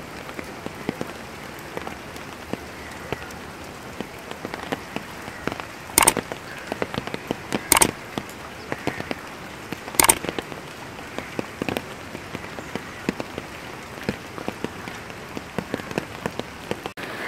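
Rain falling steadily onto standing floodwater, a constant hiss full of small pattering drops. Three sharp, loud clicks stand out, about two seconds apart, near the middle.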